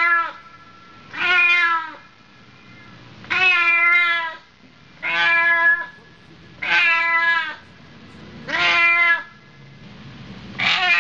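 A domestic cat meowing over and over: about six long meows, evenly spaced every second and a half or so, each holding a steady pitch and dropping slightly at the end.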